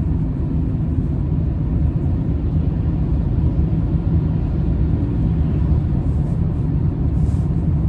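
Steady low road drone of new Tunga winter tyres humming loudly on the road, heard from inside a moving VW Polo Sedan's cabin.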